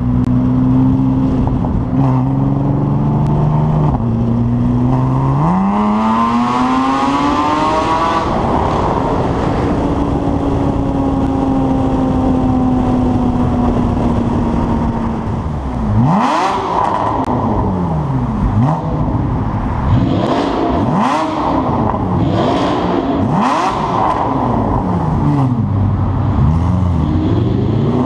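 Porsche Cayman S with an Armytrix full exhaust system accelerating hard: the exhaust note climbs in steps through the gears over the first eight seconds, then holds steady at a cruise. From about halfway the revs rise and fall over and over, with several sharp loud bursts.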